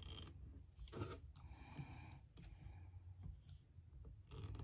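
Scissors snipping and packaging rustling as a small wrapped item is cut open: a few faint, scattered clicks and crinkles, with a sharper cluster at the start, about a second in and near the end.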